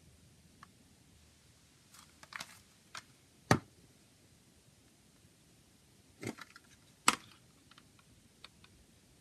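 Plastic CD jewel case handled and turned over in the hands, giving scattered clicks and taps. The loudest are a knock about three and a half seconds in and a sharp click about seven seconds in.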